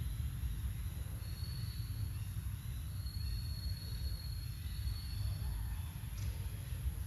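Steady, uneven low rumble of wind buffeting the microphone outdoors, with a faint thin high tone heard twice in the first half.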